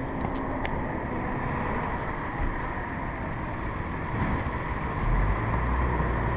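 Inline skate wheels rolling on pavement, a steady rumble with faint light clicks; a deeper, louder rumble builds near the end.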